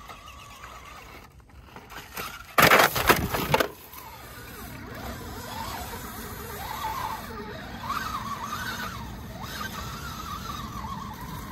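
Brushless motor of an Axial SCX10 Pro RC rock crawler (Fusion Pro 2300kv) whining as it crawls over rock, the pitch rising and falling with the throttle. A loud burst of noise about a second long comes near three seconds in.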